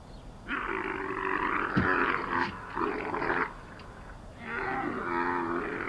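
Dromedary camels bellowing: two long, drawn-out roaring calls, the second starting about four and a half seconds in.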